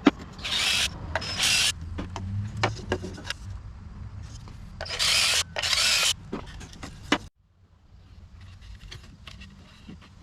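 Handheld power tool run in four short bursts, each about half a second, with clicks and knocks of handling between them. A low steady hum underneath stops about seven seconds in.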